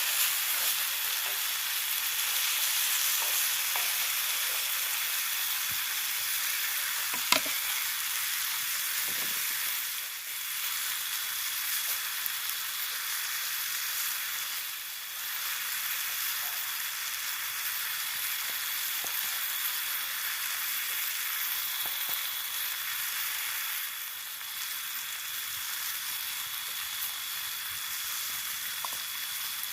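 Food sizzling in a hot pan: a steady frying hiss, with one sharp click about seven seconds in and a few fainter ticks.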